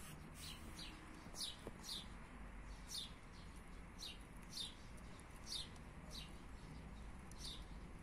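A small bird chirping in the background: a string of short, high notes that each fall in pitch, about two a second.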